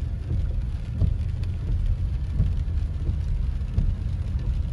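Car cabin noise while driving on a wet road: a steady low rumble of engine and tyres, with rain on the car.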